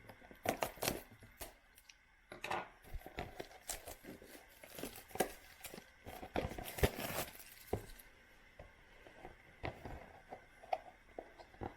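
A trading-card box being torn open by hand and its contents handled: scattered clicks and rustles of cardboard and wrapping, with a longer stretch of tearing and crinkling about six to seven seconds in.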